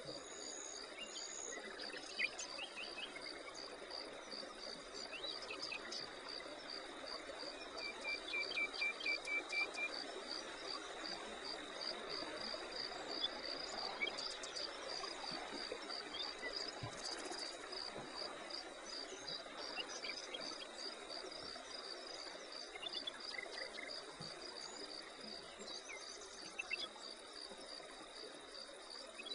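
Insects chirping steadily in a regular rhythm, about two to three pulses a second, over a constant high buzz, with a few bird chirps and a short trill about eight seconds in.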